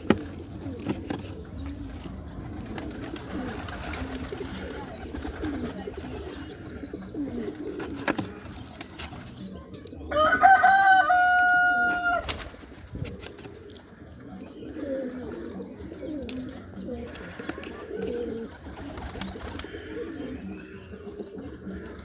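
Pigeons cooing throughout, low and wavering, with a few sharp knocks. About ten seconds in, a loud drawn-out call rises and is held for about two seconds before cutting off.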